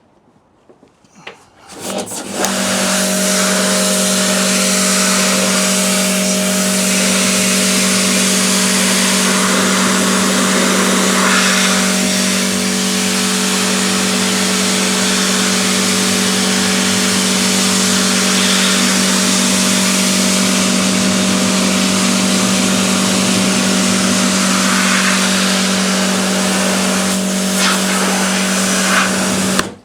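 AVA Evolution P80 electric pressure washer running with a steady hum under the loud hiss of its lance spraying water. It starts about two seconds in and cuts off suddenly near the end.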